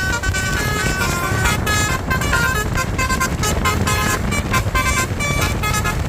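Bus basuri telolet horn playing a quick melody of short stepped notes, over a steady low rumble.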